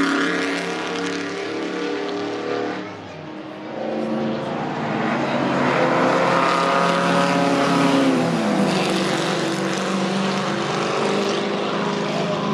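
Engines of pre-1935 Grand Prix racing cars passing on the track. One car's engine note fades in the first three seconds, then another approaches and goes by about eight seconds in, its note dropping as it passes. Engine sound carries on to the end.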